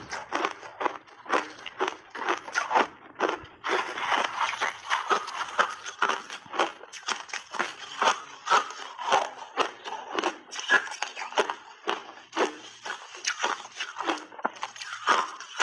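Refrozen ice being chewed in big bites close to the microphone: a dense, continuous run of sharp crunches, several a second.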